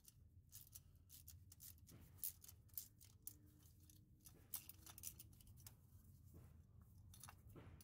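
Faint, irregular metallic clicks and scrapes of a ratchet with a socket extension backing a spark plug out of the cylinder head, the plug's threads dry.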